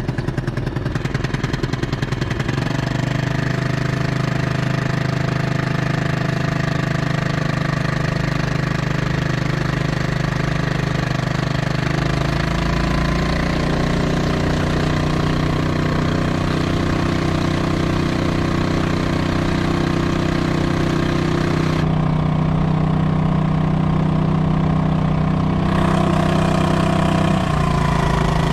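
Honda 2.3 hp four-stroke single-cylinder outboard motor running, pushing a kayak along, with water rushing past. Its steady note steps up in pitch about two and a half seconds in and again around the middle as the engine speed rises.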